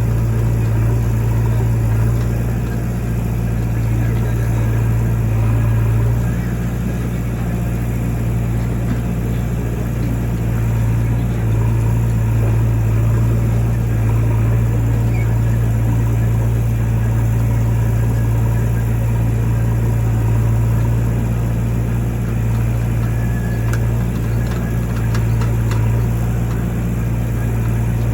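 Heavy diesel engine running steadily at low revs, its pitch shifting slightly a few times.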